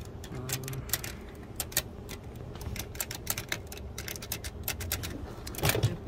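Irregular light clicks and clacks from the mechanism of a Hammond Multiplex typewriter being worked by hand, with a louder clack near the end.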